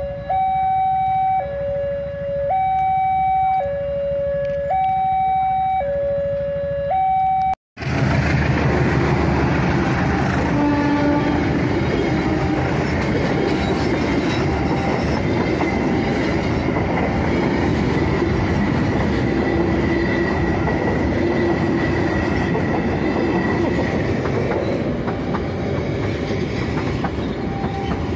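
Level-crossing warning alarm sounding, two tones alternating about once a second. After a sudden cut about eight seconds in, a passenger train's coaches roll past the crossing with a steady rumble and clatter of wheels on rail.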